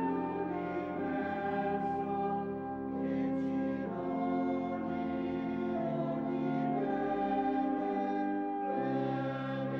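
Pipe organ and flute playing slow sacred music, long held notes moving from one to the next every second or so.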